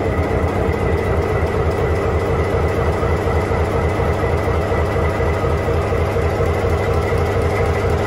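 EMD two-stroke locomotive diesel engine running steadily after startup, heard close at its open valve covers: an even rhythmic beat with a steady high whine over it.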